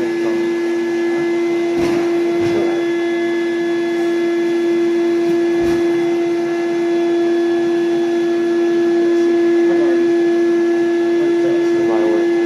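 A loud, steady, high-pitched machine hum holding one pitch throughout, with a few short knocks about two seconds in and again near six seconds.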